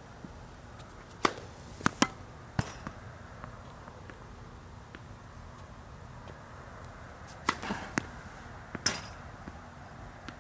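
Tennis serves: sharp knocks of ball on racket and hard court, in two groups of three or four, the first about a second in and the second about seven and a half seconds in.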